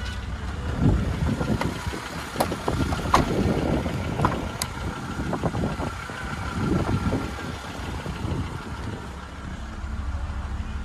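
Wind rumble and handling noise on a phone microphone, with a few sharp clicks as a rear door of the SsangYong Rexton is opened.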